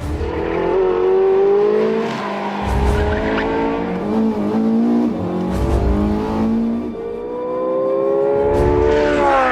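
Porsche 918 Spyder's naturally aspirated V8 accelerating hard, rising in pitch and dropping sharply at each of several upshifts.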